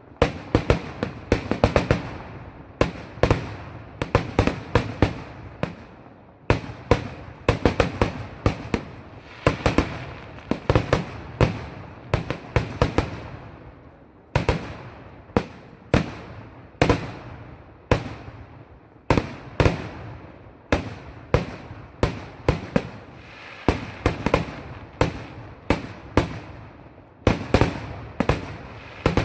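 Kerala temple-festival fireworks (vedikettu): a steady barrage of sharp firecracker bangs, about two a second, each trailing off, with a couple of brief lulls.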